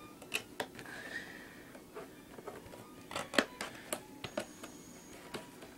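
Scattered clicks, taps and rustles of packaging being handled and opened, the loudest tap about three and a half seconds in.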